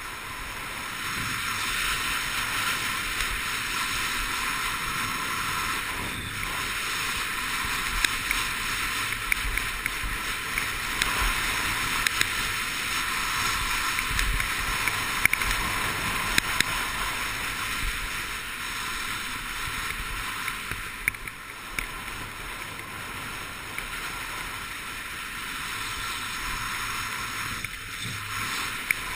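Skis hissing and scraping over packed snow on a steady downhill run, mixed with wind rushing past the camera's microphone. Scattered sharp ticks sound over the noise, most of them through the middle of the run.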